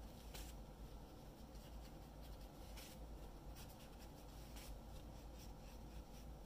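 Faint strokes of a water brush on drawing paper: a few short, soft scratchy sounds over a low steady hum.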